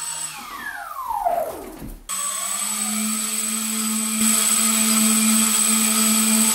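Small electric fan motors at the tips of a homemade tip-jet model helicopter rotor, whining as they spin the foam-board blades. Over the first two seconds the whine falls steeply in pitch as the motors slow, then breaks off suddenly; after that the motors run with a steady whine, louder from about four seconds in.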